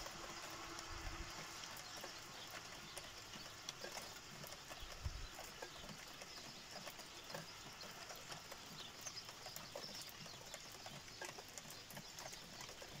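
Light rain falling: a faint steady hiss with scattered, irregular ticks of drops.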